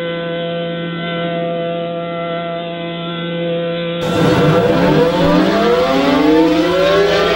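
A steady droning chord of held tones. About four seconds in, a siren-like wail sweeps upward over it in several overlapping rising glides, like an air-raid siren winding up.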